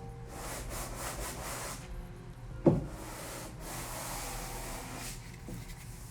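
Sandpaper on a rigid hand sanding block rubbing over wood in long strokes, with a single sharp knock about two and a half seconds in.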